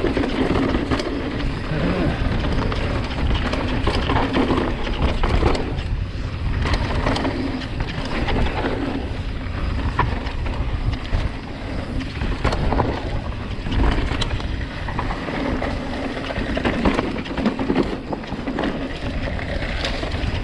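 Mountain bike riding fast down a dry dirt singletrack: tyres rumbling over loose dirt and the bike rattling over bumps, with wind rushing over the microphone.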